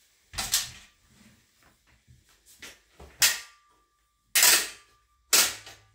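Four short bursts of household handling noise, each under half a second, spread through the few seconds; the last two are the longest and loudest.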